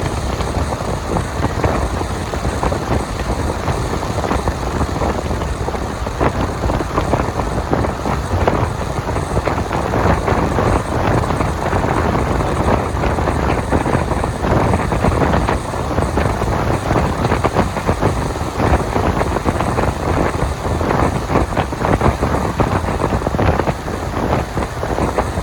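Strong wind buffeting a phone's microphone: a continuous loud, gusty rush with no let-up.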